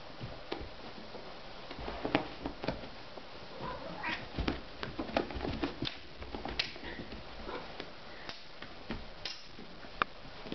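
Kitten scrabbling and thumping on carpet as it spins after a wand toy, with a few short meows.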